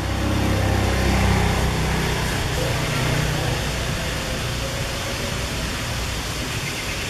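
A motor vehicle engine running close by, loudest in the first few seconds and then easing into a steady noise.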